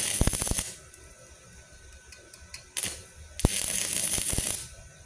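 Stick-welding arc from a MultiPro EG 200 ASC inverter welder burning a 2.6 mm LB-52U low-hydrogen electrode. It crackles in short bursts that cut out, about half a second at the start and about a second later on. The arc keeps dying because the machine lacks the amperage or arc stability for this rod.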